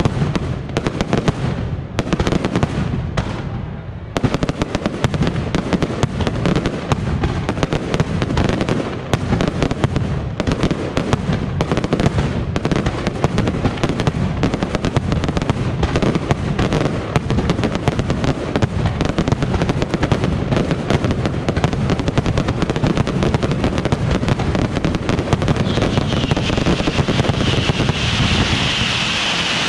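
Mascletà firecrackers going off in a dense, unbroken rapid-fire string of bangs, thinning briefly a couple of seconds in and then running on just as thick. Near the end a high hiss builds over the bangs.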